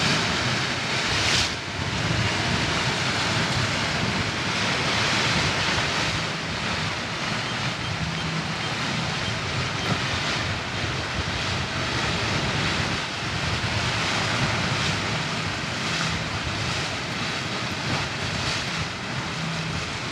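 Wind buffeting the microphone and water rushing past the hulls of a Leopard 45 sailing catamaran on a beam reach at about 9 knots in about 22 knots of wind, a steady noise that swells slightly now and then.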